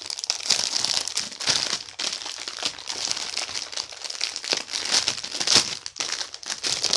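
Packaging crinkling and rustling as squishy toys are pulled out of their package, a continuous run of small crackles.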